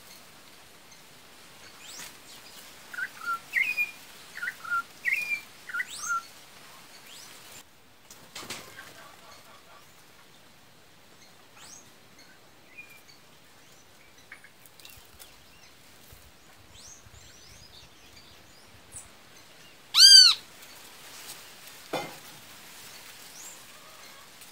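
Wild songbirds calling: a quick run of short chirped phrases a few seconds in, scattered faint calls, then a single loud harsh call near the end, followed shortly by a light knock.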